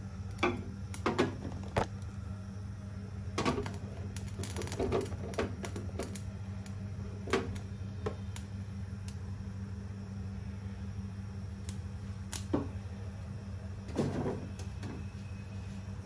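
Scattered light knocks and clicks in a kitchen, about eight over the stretch, above a steady low hum.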